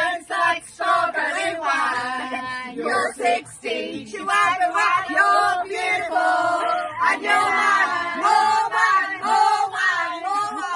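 A group of women singing together loudly, voices overlapping.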